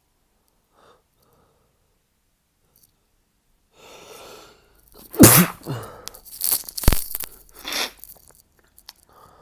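A man's stifled sneezes: a breath drawn in, then a loud held-in sneeze about halfway through, followed quickly by several smaller stifled sneezes.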